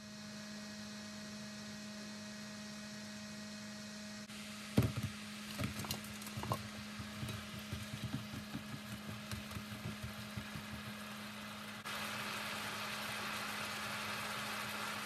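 Chicken wings simmering in soy glaze sauce in a frying pan, the sauce bubbling and hissing over a steady low hum. From about five seconds in, a spatula knocks and scrapes against the pan as the wings are turned. Near the end the sizzle grows louder and more even as the sauce reduces.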